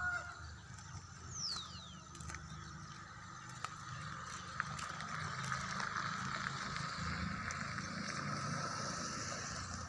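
Faint open-air ambience with a steady low hum and a thin steady higher hum. About a second in, a single high whistle falls in pitch, and a few light clicks follow.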